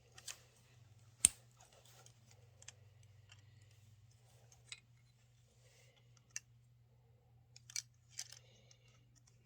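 Plastic toy parts clicking and knocking as they are handled and snapped together, a few scattered clicks with the sharpest about a second in, over a faint steady low hum.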